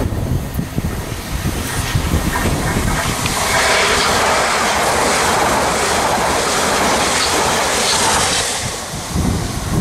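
Hitachi Class 395 Javelin electric multiple unit passing close at speed, its wheels running over the rails. The rush of noise swells about three and a half seconds in, stays loud and even, then falls away near the end.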